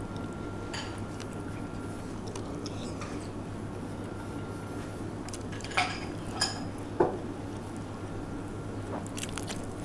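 A man eating a filled bun, biting and chewing, over a steady low hum of room noise. About six to seven seconds in come three sharp clicks close together, the loudest sounds here, with a few fainter ones near the end.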